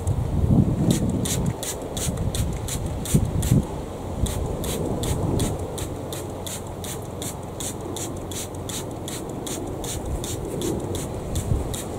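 Hand trigger sprayer squirting onto tomato plants in rapid, evenly spaced hissing squirts, with leaves rubbing and rustling and a low rumble of wind on the microphone.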